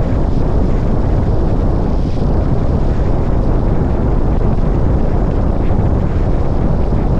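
Heavy wind buffeting on a camera microphone held out of a car's sunroof at highway speed: a loud, steady rumble.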